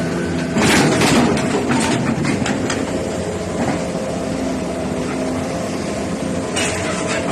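Excavator's diesel engine running steadily, with a louder rushing burst about a second in and scattered short clicks.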